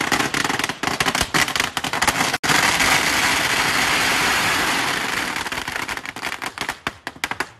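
A string of firecrackers going off at close range: rapid sharp cracks that merge into one continuous crackle about two and a half seconds in, then thin out to scattered bangs and stop near the end.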